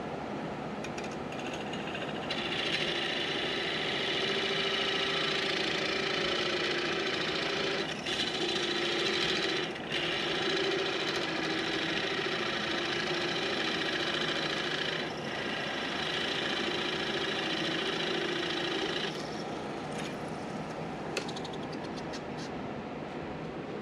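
Wood lathe running with a turning tool cutting a spinning cedar workpiece: a steady, even cutting noise from about two seconds in until about nineteen seconds, broken by brief gaps where the tool comes off the wood, then only the lathe running with a few small clicks near the end.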